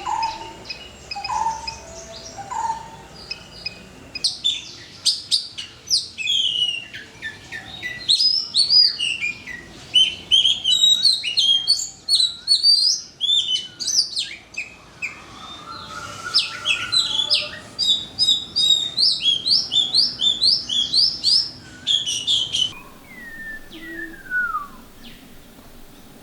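Birds calling and singing across a few joined recordings. First a short call repeated about every second and a half, then a dense stretch of quick high chirps and trills, and near the end one descending whistled call.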